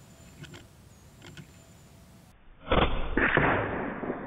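A .22 gas-piston break-barrel air rifle fires with a sharp crack, and about half a second later the pellet hits and bursts a full soda can, whose spraying soda gives a hiss that fades over about a second.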